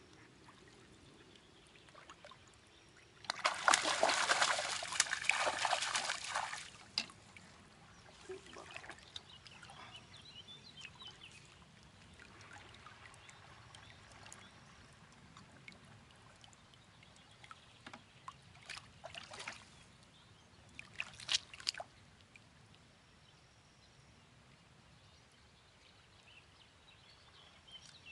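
A hooked fish thrashing and splashing at the water's surface as it is drawn into a landing net, a loud burst lasting about three seconds, followed later by lighter sloshing and a few short, sharp splashes as the net is lifted from the water.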